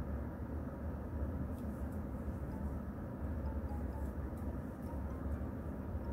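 Steady low rumble of background noise, with a few faint light ticks now and then.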